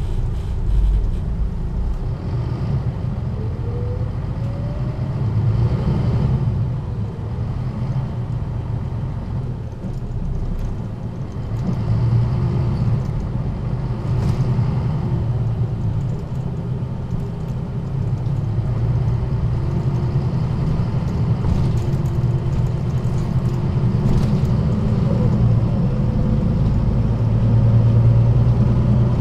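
1998 MAN NG 313 articulated bus on the move, its six-cylinder diesel engine running with a steady low drone. A faint rising whine comes in twice, about five seconds in and again near the end, as the engine and ZF gearbox pull the bus up to speed and the sound grows louder.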